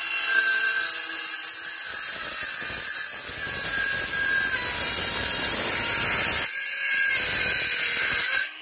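Black+Decker 20-volt cordless circular saw running and cutting through a clamped wooden board, a steady high-pitched whine over the cutting noise. It stops just before the end as the cut finishes.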